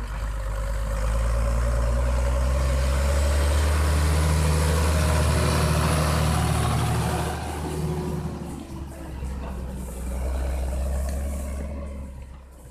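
Ursus 1604 tractor's six-cylinder turbo diesel working at full power as it drives past towing two trailers, loudest as it passes close by, with a faint high whine rising about three seconds in. The engine sound drops back in the second half and fades near the end as the trailers roll past.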